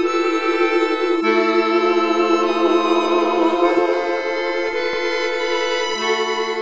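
Slow instrumental film score of long held notes, the upper line wavering with vibrato over a lower sustained note, the harmony shifting about a second in and twice more later.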